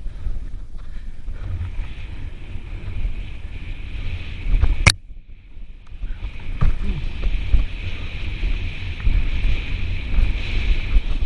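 A mountain bike running fast down a dirt trail: wind buffets the helmet microphone, and the tyres and frame rattle over the bumps under a steady high buzz. A sharp clack about five seconds in is followed by a brief lull. Then a knock as the wheels hit a wooden boardwalk, and the rattle carries on.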